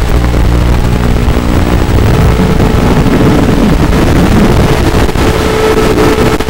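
RCX 1804 brushless motors and propellers of a 3D-printed micro quadcopter in flight: a steady motor hum that starts to rise and fall in pitch about two seconds in as the throttle changes.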